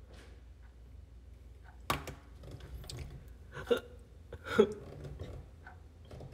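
A young man's short bursts of laughter, a few separate ones, the two loudest close together past the middle; a sharp click about two seconds in.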